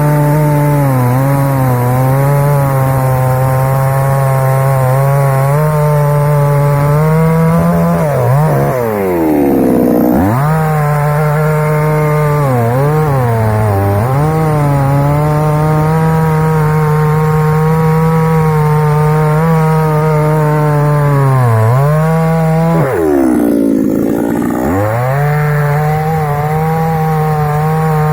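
Start Pro two-stroke petrol chainsaw running at high revs. Several times the revs drop sharply and climb back up, notably around eight to ten seconds in and again around twenty-three seconds in.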